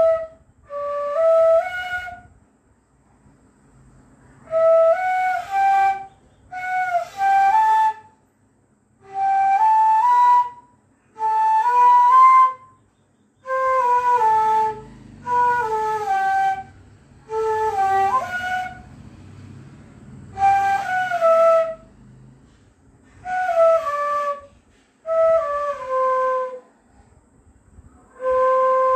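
Bansuri, an Indian bamboo transverse flute, played solo in short melodic phrases of a few stepped notes each, with brief pauses between the phrases.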